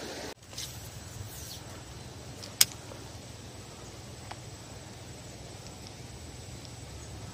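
A single sharp click about two and a half seconds in, over a low steady hum, with a much fainter tick a couple of seconds later.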